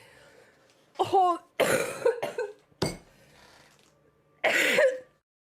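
A girl coughing in about four short bouts, some of the coughs voiced, the last one starting about four and a half seconds in.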